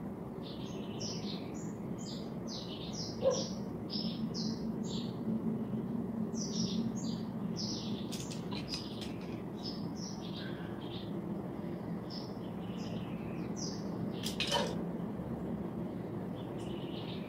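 Small birds chirping in many quick, irregular short calls over a steady low hum. Two sharp clicks, the louder one about three seconds in and another about three seconds before the end.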